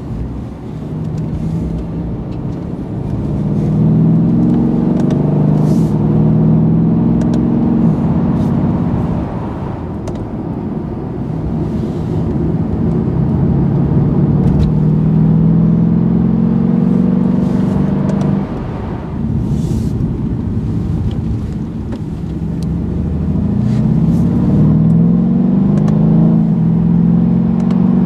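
2014 Mercedes-Benz E63 AMG S twin-turbo V8 heard from inside the cabin while driving. The engine note climbs as the car accelerates, holds steady at cruise, eases off briefly, then climbs again near the end.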